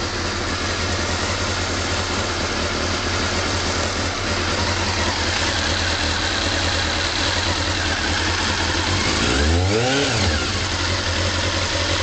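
Honda CB-1's 400cc inline-four engine idling steadily, with one quick throttle blip a little over nine seconds in that rises and drops back to idle within about a second. The idle is the tappety, uneven-sounding one that the owner is asking about.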